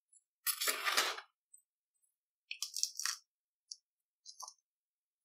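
Potting soil being added by hand into a thin plastic plant pot, its grains rattling against the plastic. There are two short gritty bursts, one about half a second in and one near three seconds, then a few small ticks.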